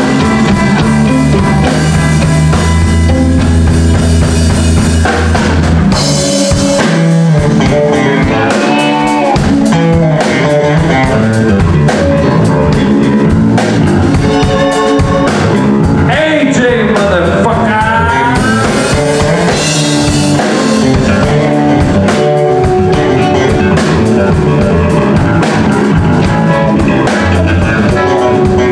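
Live blues band playing: electric guitar, electric bass and drum kit, loud and with a steady beat. A run of notes bends up and down about two-thirds of the way in.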